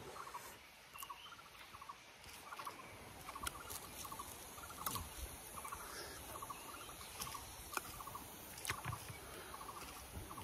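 Faint repeated animal calls: short clusters of rapid pulses, about two a second, with a few sharp clicks scattered among them.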